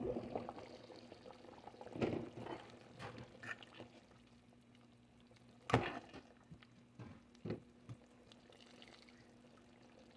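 A metal ladle stirring thick, simmering curry in a stainless-steel pot, with wet sloshing and sharp clinks of metal on metal, the loudest a little before halfway, after the lid is lifted off at the start.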